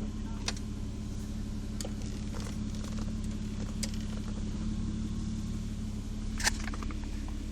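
Mitsubishi 3000GT's SOHC 3.0-litre V6 running steadily, with a few short sharp clicks now and then, the loudest near the end.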